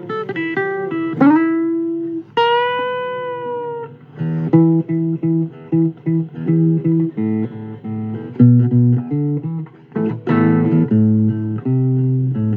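Guitar playing a bluesy instrumental passage: bent notes at first, then a picked riff over low bass notes from about four seconds in.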